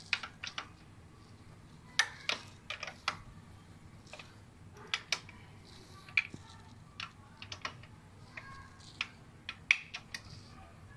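Hand wrench working the bolts of a Toyota 2E engine's cylinder head as it is fitted: scattered sharp metallic clicks and taps, irregularly spaced, some single and some in quick little runs.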